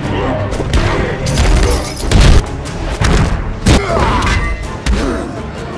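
Film battle soundtrack: orchestral score under repeated heavy impact booms and thuds from a close-quarters fight, with the loudest hits about two seconds in and again near four seconds.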